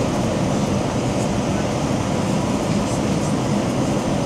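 Steady cabin noise of a Boeing 787-9 airliner on approach, heard from a window seat beside the wing: an even rushing of engines and airflow with a low rumble underneath.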